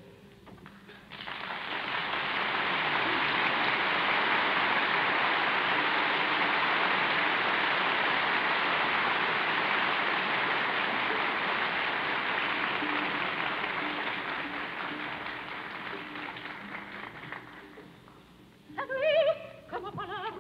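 Opera audience applauding between numbers: it swells up about a second in, holds, and slowly dies away. The orchestra and a singer take up again near the end. Heard through the narrow, dull sound of a 1939 broadcast recording.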